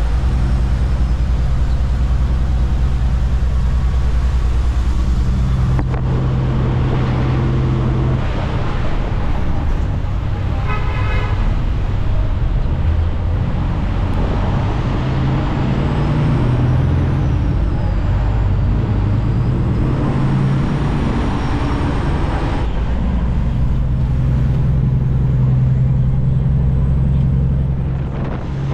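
Kenworth W900 semi truck's diesel engine running under way, with its pitch shifting several times.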